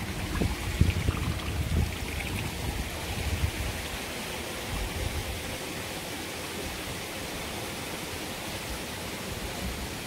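Creek water running steadily over rocks, with low buffeting in the first few seconds.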